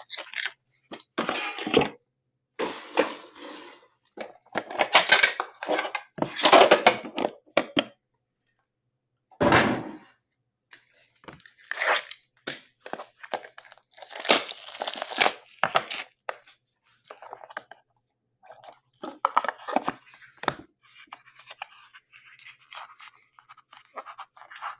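An Upper Deck The Cup hockey card box being opened by hand: irregular bursts of tearing and crinkling as its wrapping and cardboard are pulled apart, with a single heavier thump about nine and a half seconds in.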